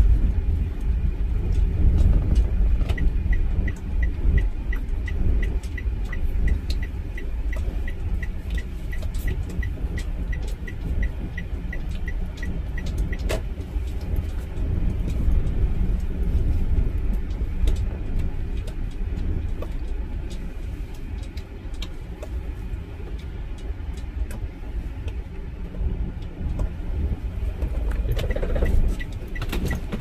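Car driving slowly, heard from inside the cabin as a steady low engine and tyre rumble. A regular light ticking, the turn-signal indicator, runs at about three ticks a second from about three seconds in to about thirteen seconds, and starts again near the end.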